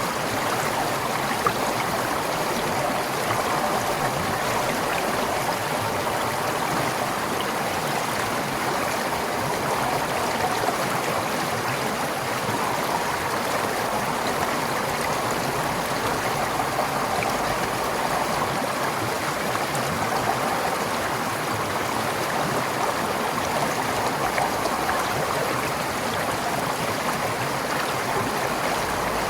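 Forest stream flowing over rocks: a steady babble of running water.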